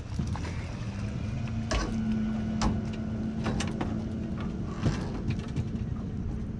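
Knocks and clatter of fishing gear on a pontoon boat as a landing net is grabbed and swung out, a few sharp knocks over a steady low hum and rumble.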